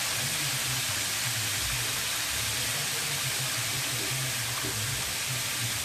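Breaded chicken tenders deep-frying in a pan of hot oil, a steady sizzle.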